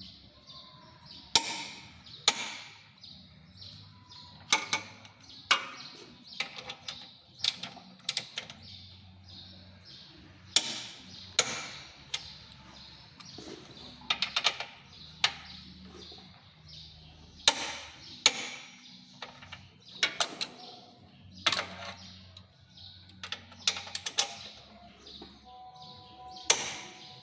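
Irregular sharp metallic clicks and knocks of hand tools, a ratchet and torque wrench being worked on the steering rack mounting bolts, with a short steady hum near the end.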